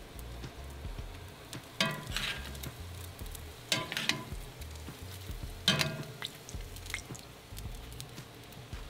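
Bacon frying in grease in a cast iron pan on the grill, a steady crackling sizzle. Metal tongs clatter against the grill three times, about two seconds apart.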